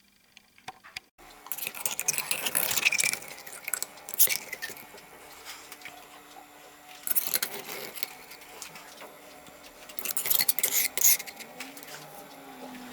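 Metal parts being handled: jangling, clinking and scraping in three spells, about a second and a half in, around seven seconds and around ten seconds, over a steady low hum that starts just over a second in.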